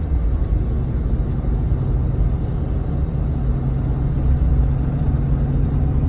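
Car driving at steady speed, heard from inside: an even, low rumble of engine and tyre road noise.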